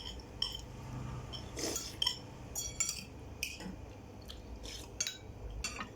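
Cutlery clicking and clinking against dishes during a meal: irregular short taps, some with a brief high ring.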